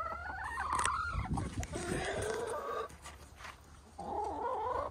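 Backyard hens clucking, with three drawn-out calls: a rising one at the start, one about two seconds in and one near the end. A few low knocks come about a second in.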